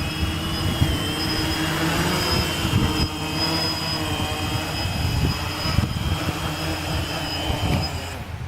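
Gaui 500X quadcopter's electric motors and propellers whining in flight, the pitch shifting slightly, with wind buffeting the microphone. The motors cut off abruptly just before the end.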